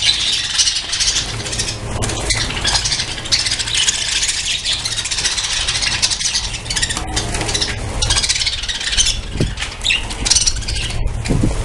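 A colony of budgerigars chattering and chirping all at once, a dense, continuous high twitter, over a steady low rumble.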